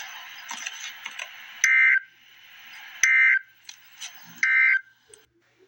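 Emergency Alert System end-of-message data bursts: three short, harsh two-tone digital chirps about 1.4 s apart, marking the end of the alert. They play over a hiss that fades after the first burst.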